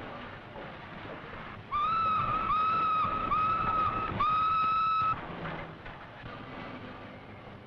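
Steam locomotive whistle of a Pacific 231 sounding four blasts, three short ones and then a longer one, over a steady noisy background.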